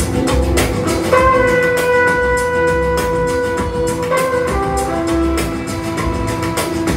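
Recorded music playing through a Cosmic Lab 3000 MK II stereo amplifier and its speakers: a steady drum beat, with a long held wind-instrument note entering about a second in and then shorter notes.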